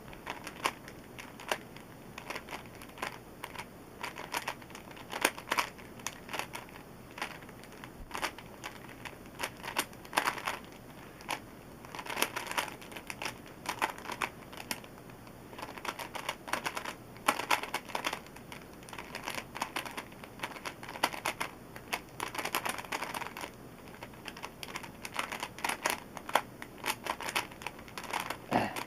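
Original Rubik's Cube, lubricated with Maru Lube, being turned fast by hand during a speedsolve: the plastic layers click and clack in rapid bursts, with brief lulls between them.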